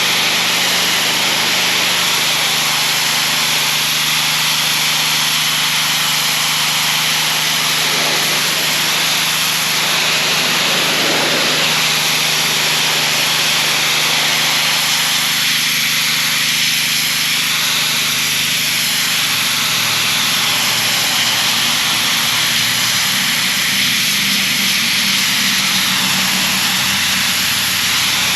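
Gas-engine pressure washer running steadily under load, with the constant hiss of its water jet spraying a retaining wall.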